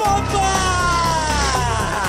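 Background music with a steady beat, and over it a man's long triumphant yell that slowly falls in pitch.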